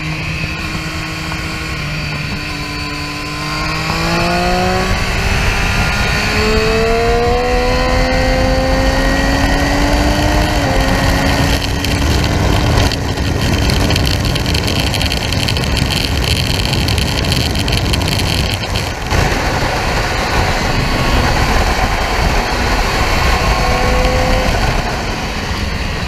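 Triumph Street Triple R's 765 cc three-cylinder engine heard from onboard at track speed. The revs climb in one long pull from about three seconds in, with a brief dip in pitch near ten seconds. After that, heavy wind rush over the microphone largely covers the engine.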